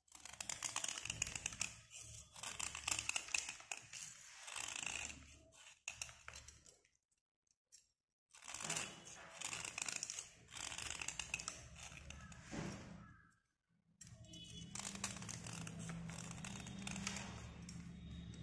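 Snap-off utility knife blade scraping along a slate pencil, scratchy strokes in runs of a few seconds with two short pauses, shaving off the pencil's outer layer.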